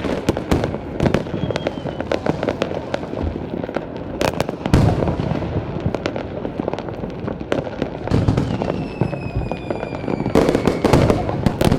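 Fireworks display: a dense run of bangs and crackles over a continuous rumble, with heavy bursts about halfway through and again near the end. A falling whistle sounds late on.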